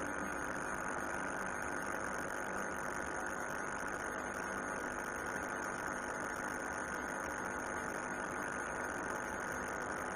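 Steady background hum and hiss with a faint constant high tone, unchanging throughout; no bird calls.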